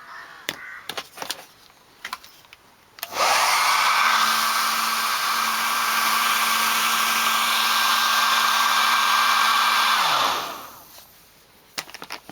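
Handheld hairdryer switched on about three seconds in, running steadily with a constant hum, then switched off about ten seconds in, its motor winding down. It is blowing warm air over a fresh coat of leather filler to dry it. A few light handling clicks come before it starts.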